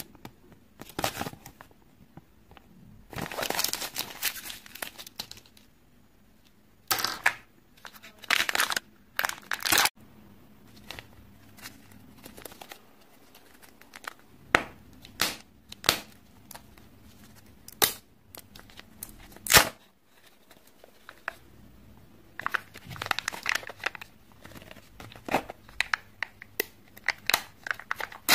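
Kinder Joy egg foil wrappers and paper being crinkled and torn by hand, in irregular bursts with pauses between. Several separate sharp clicks are mixed in.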